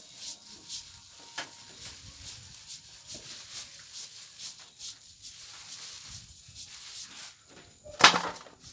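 Hands rubbing and scrubbing something wet in an aluminium basin, a string of soft rubbing strokes. A single sharp knock against the metal about eight seconds in.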